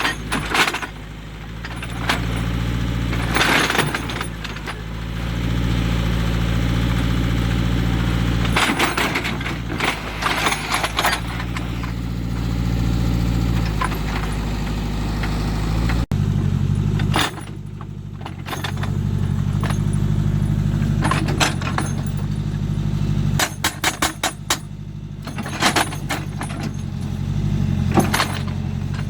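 JCB 3D backhoe loader's diesel engine running under load, with irregular clusters of sharp knocks and clatter of metal against rock.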